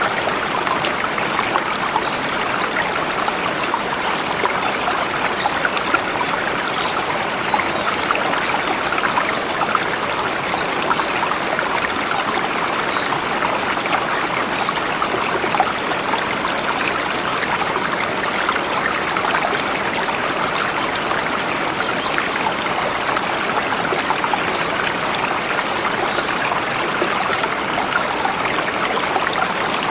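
Forest river flowing over smooth rocks: a steady, full rushing and babbling of water.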